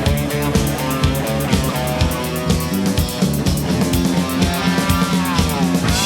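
Live rock band playing an instrumental passage: electric guitars and bass over a drum kit keeping a steady beat. Over the last second a guitar slides down in pitch as the song comes to its end.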